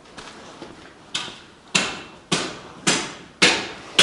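Hammer blows, evenly paced at a little under two a second, each a sharp strike with a short ringing tail; they start about a second in.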